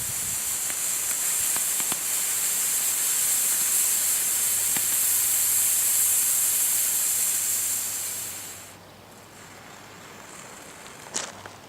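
Smoke ball firework burning with a steady, high hiss that fades out and stops about eight and a half seconds in.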